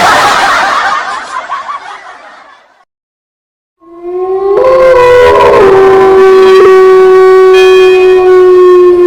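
A noisy burst fading out over about three seconds, then, after a second of silence, a long horn-like blast that slides up at its start and is held steady on one note.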